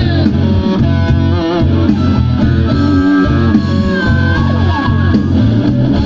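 Live blues-rock band playing: guitar and a bending, wavering lead melody over a pulsing bass line and drums.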